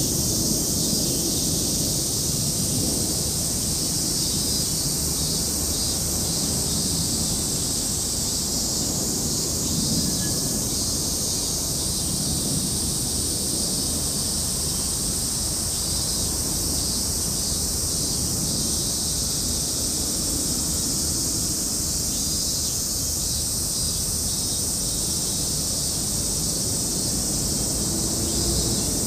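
Outdoor ambience: wind rumbling on the microphone over a steady high-pitched hiss.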